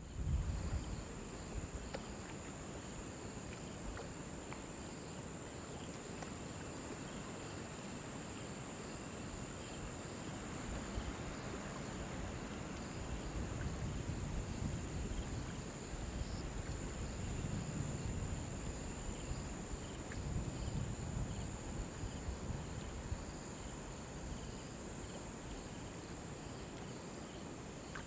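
A chorus of crickets chirping: one continuous high trill, with softer repeated chirps from other crickets beneath it. There is an uneven low rumble in the background.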